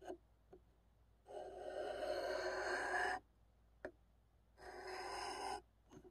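M4 steel knife edge drawn along a ceramic rod in two long scraping strokes, the first about two seconds, the second about one, with a few faint ticks between: deburring a freshly sharpened blade.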